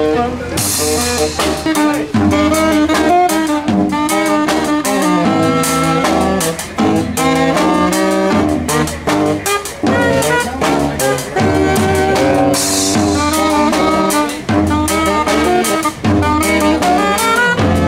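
Street jazz band playing live: two saxophones carry the melody over a sousaphone bass line, with a small drum kit keeping a steady beat. Cymbals ring out twice, near the start and about two-thirds of the way through.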